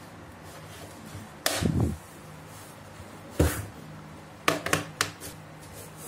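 Plastic clips of an HP Pavilion 15 laptop's bottom cover cracking as a plastic pry tool levers the cover loose. There is a sharp crack about one and a half seconds in, another near three and a half seconds, and a quick run of cracks between four and a half and five seconds. The clips are releasing: cracking that is normal during opening and does no harm.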